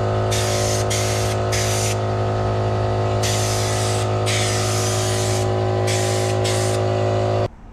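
Spray gun hissing in repeated bursts of about half a second to a second as black paint is sprayed onto Beetle engine tinware, over a steady machine hum. Both cut off suddenly near the end.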